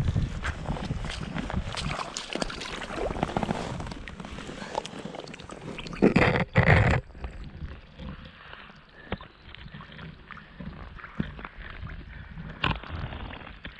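Water sloshing and gurgling with scattered small knocks and clicks, and a loud double burst of noise about six seconds in.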